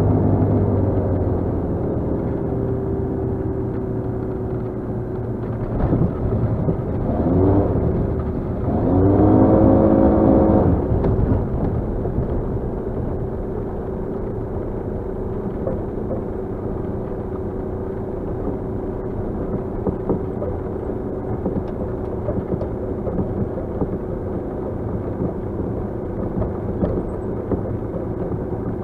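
Trendak Xenon 2 RST gyroplane's engine heard inside the cabin, its pitch falling at the start, then rising and falling twice between about 7 and 11 seconds in, then running at a steady low idle while the gyroplane rolls over grass.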